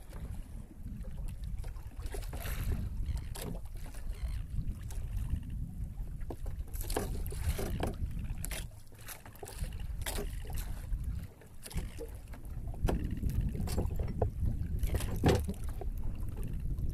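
Wind rumbling on the microphone aboard a small outrigger boat at sea, rising and falling in gusts, with scattered short knocks and clicks from the line and boat.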